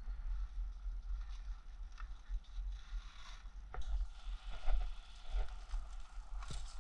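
Rustling and handling noise from a player's kit and body-worn camera, with scattered light clicks and two sharper clicks, about four seconds in and near the end, over a steady low rumble.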